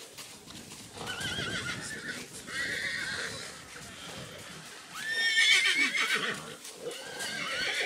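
Black Forest draft horses whinnying: about four long, quavering calls, the loudest a little past halfway.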